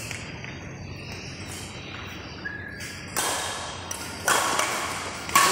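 Badminton rally: three sharp racket strikes on the shuttlecock, roughly a second apart, starting about three seconds in, each ringing on in a large echoing hall.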